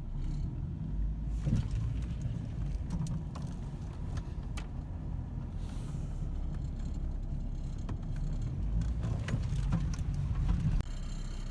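Car or truck driving, with a steady low rumble and scattered rattles and clicks throughout.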